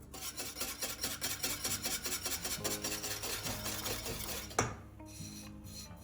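Rapid rhythmic rubbing or scraping strokes, like scrubbing, with a sharp click about four and a half seconds in, after which the strokes turn lighter.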